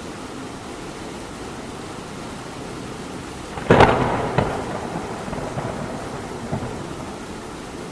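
Steady rain falling, then a little under four seconds in a sharp clap of thunder with a second crack just after, rumbling away over the next few seconds.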